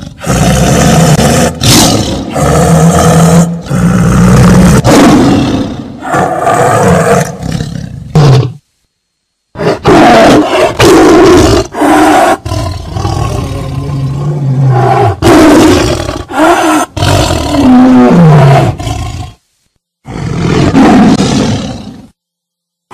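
Tiger roaring: a run of loud, rough roars one after another, broken by two short silences, one about a third of the way through and one about four-fifths of the way through.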